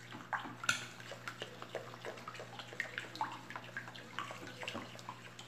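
A spoon stirring liquid soap batter in a plastic bowl: continuous sloshing and swishing with many small irregular clicks and taps of the spoon against the bowl.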